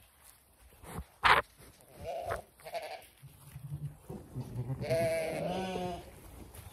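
Zwartbles sheep bleating: a few short calls, then a long wavering bleat about five seconds in. A sharp thump about a second in, close to the microphone.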